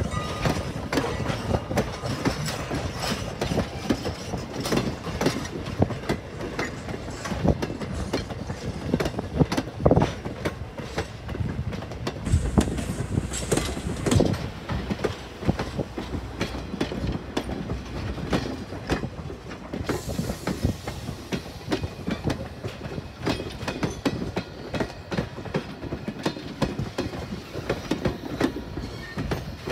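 Strasburg Rail Road passenger coaches rolling past, their wheels clicking over rail joints in an uneven clickety-clack over a steady rumble.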